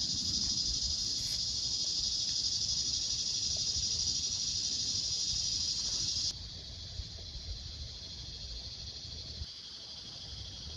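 Steady high-pitched insect chorus, a continuous shrill buzz that drops sharply in level about six seconds in and carries on more faintly.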